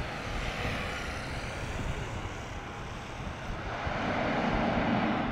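Airliner engines running: a dense, loud rush of noise that swells about four seconds in.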